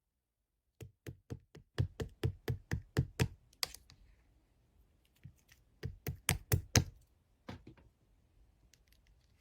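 A run of sharp, evenly spaced taps or knocks, about three to four a second, starting about a second in, then a second short run of louder taps around six seconds in and one more after it.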